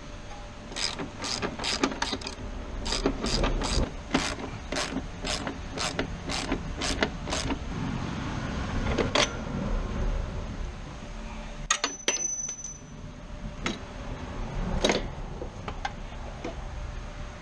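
Hand ratchet wrench clicking steadily, about three clicks a second, as a bolt is worked loose, then a few scattered clicks and a metal clink with a short ring about twelve seconds in.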